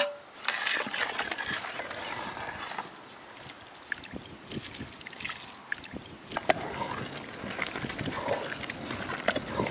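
Rice and boiling water being stirred with a long metal ladle in a large metal cooking pot, sloshing and gurgling, with occasional light knocks.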